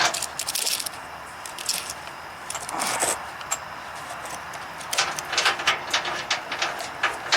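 Metal hardware clinking and rattling in scattered clusters of short clicks, as mounting bolts and tools are picked up and handled.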